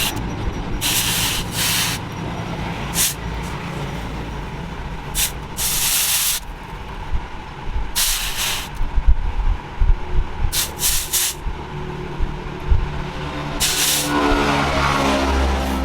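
Repeated short bursts of hissing, each under a second and coming every one to three seconds, over a steady low rumble; a low hum rises near the end.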